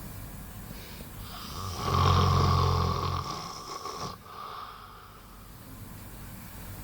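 A boy snoring in his sleep: one long, loud, buzzing snore starting about a second and a half in and lasting about two seconds, with quieter breathing around it.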